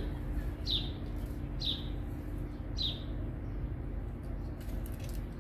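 A small bird chirping: three short high chirps, each falling in pitch, in the first three seconds, over a steady low hum.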